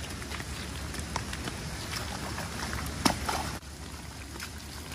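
Footsteps in gumboots squelching and splashing through mud and puddles on a waterlogged path, with one louder splash about three seconds in.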